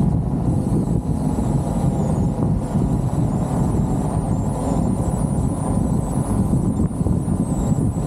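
Wind buffeting the microphone in an open-top Jeep on the move, over a steady low rush of road and engine noise.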